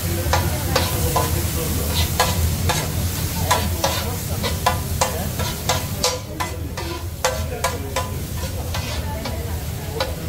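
Metal spatulas chopping and scraping on a large round steel griddle: quick, irregular clacks over the steady sizzle of food frying.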